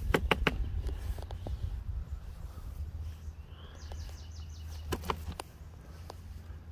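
Ice cubes in a cooler clicking and clinking under a hand, a few sharp clicks at the start and again about five seconds in. Between them a bird chirps faintly, over a low steady outdoor rumble.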